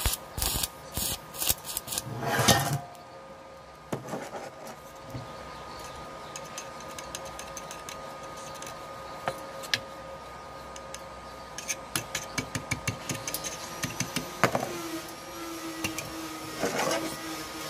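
Electric arc welding crackling and sputtering in short bursts over the first few seconds, flux-core wire run off an ordinary stick welding machine. Then a quieter steady hum with a quick run of light clicks, and a new steady humming tone setting in about two-thirds of the way through.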